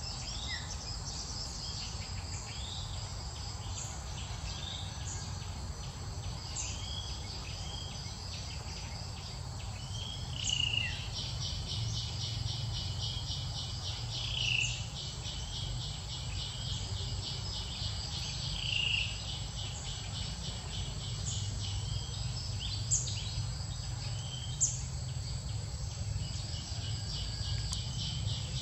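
Steady trilling insect chorus, with short high chirps every few seconds, the loudest about ten, fourteen and nineteen seconds in, over a low rumble.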